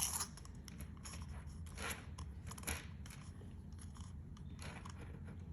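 Faint small clicks and soft crackly rattling of a tiger's eye chip necklace being handled and stretched out to be measured, with a sharper click at the start.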